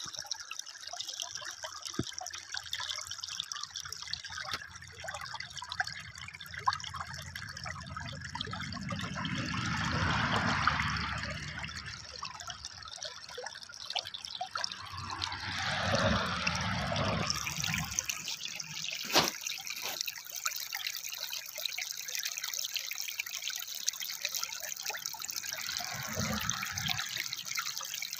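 Shallow water trickling and running over stones in a roadside drainage channel, growing louder for a few seconds about ten seconds in and again around sixteen seconds, with a single sharp click a little later.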